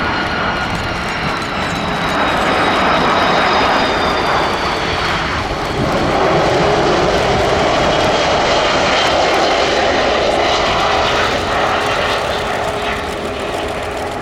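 Airbus A330 MRTT's two Rolls-Royce Trent 700 turbofan engines as the jet comes in to land. A jet whine with slowly falling tones sits under a dense rush that swells about two seconds in and again about six seconds in, then eases near the end.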